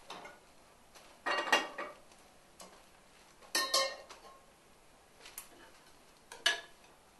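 Metal pans, a wok and a saucepan, set down on the pan supports of a gas hob: two clattering clanks with a brief ring, about a second and a half in and again about three and a half seconds in. A shorter sharp knock follows near the end.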